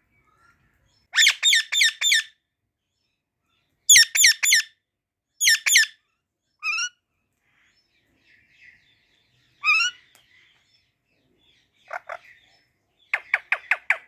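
Pet Psittacula parakeets chirping: short groups of three or four quick, falling chirps, repeated several times with pauses between, and a faster run of chirps near the end.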